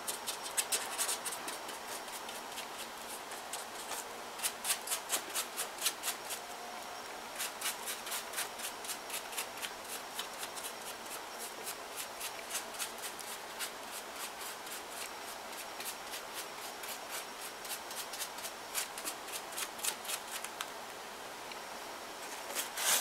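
A stiff flat paintbrush scrubbing gesso onto a paper mache surface: quick scratchy strokes, about four a second, in runs with short pauses.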